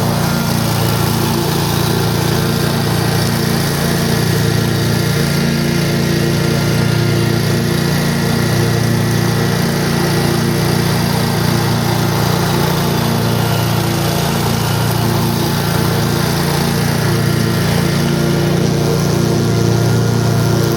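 Kawasaki FH541V 17-horsepower V-twin engine of a Scag 52 Advantage walk-behind mower running steadily.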